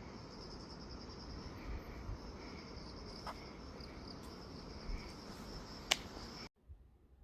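Insects chirring in a steady, finely pulsed high trill, with fainter chirps below it. A sharp click comes near six seconds, and the sound cuts off abruptly just after.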